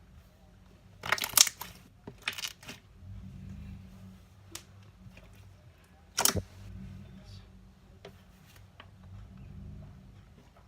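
Slime being squeezed and stretched by hand, giving sharp pops and crackles. A cluster of loud pops comes about a second in, more just after two seconds, and one loud pop just after six seconds, with fainter clicks in between.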